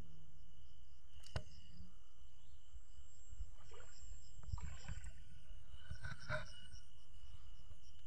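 Night insects trilling steadily in two high, even tones over a low rumble. A sharp knock about a second and a half in, then a few short splashes from wading in a shallow stream between about three and a half and six and a half seconds.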